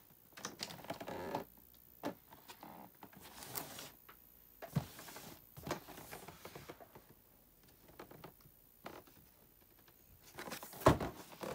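A large rigid cardboard gift box being handled and turned on a tabletop: scattered light scrapes, taps and rustles, with one sharp knock near the end.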